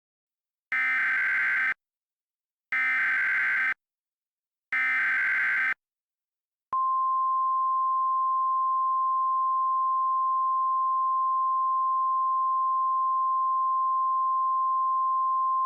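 Emergency Alert System activation. It opens with three one-second bursts of SAME header data tones, about a second apart. About seven seconds in, a single steady alert tone begins and holds.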